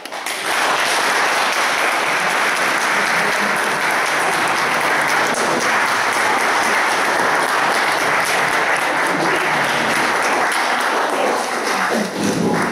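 Audience applauding, steady, dense clapping that dies down near the end as voices come in.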